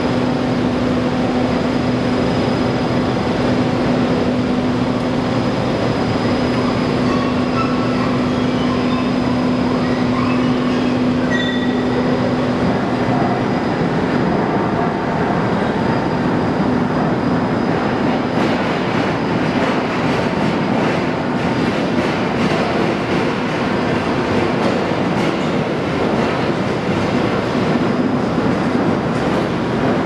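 Steady, loud machine noise from a steel mill's pusher reheating furnace and roller table. A steady hum fades out about halfway, and a rattling clatter comes in over the second half.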